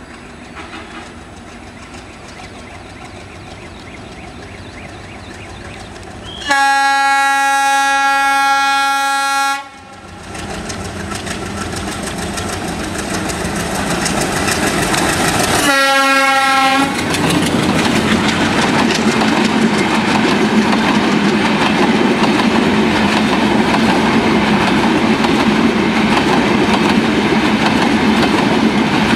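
Diesel locomotive of a Bangladesh Railway intercity express approaching and passing: the engine hums at a distance, then a long horn blast of about three seconds, a second shorter blast about ten seconds later, and a growing rumble of engine and wheels that turns into the clickety-clack of the passenger coaches rolling past.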